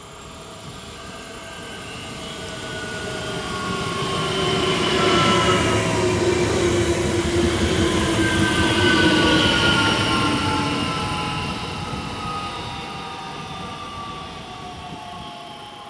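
Bombardier Talent 2 (class 1442) electric multiple unit passing close by, its rolling noise swelling to a peak as it goes past and then fading. Whining tones glide slowly down in pitch throughout the pass.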